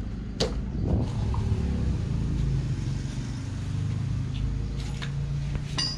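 A motor vehicle engine runs with a low, steady rumble that swells briefly about a second in. A sharp click comes about half a second in, and a short rattle of clicks near the end.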